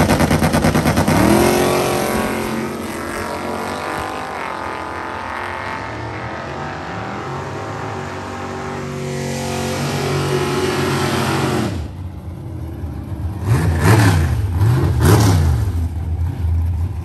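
Drag cars launching hard off the line, the engine pitch climbing and levelling through the gears as they pull away down the strip and fade. About twelve seconds in, a nearby Chevy II Nova drag car's engine takes over, rumbling at idle and revved up and down in three sharp blips.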